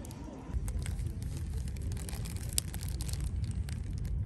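Low, steady rumble of wind on the microphone, strengthening about half a second in, with scattered light crinkles and clicks like plastic packaging being handled.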